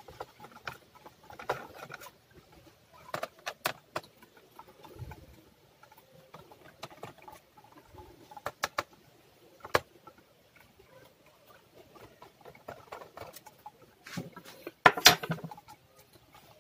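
Small screwdriver working screws out of the plastic underside of an Asus A43S laptop: scattered light clicks and scratching of the metal tip in the screw heads and of the tiny screws being handled, with a louder clatter near the end.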